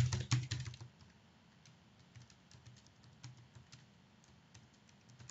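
Typing on a computer keyboard, entering a line of text. A run of louder keystrokes in the first second is followed by lighter, steady tapping.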